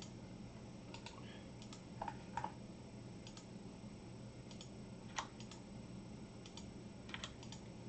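Light, scattered clicks of a computer mouse and keyboard, about a dozen at uneven gaps, over a faint steady low hum.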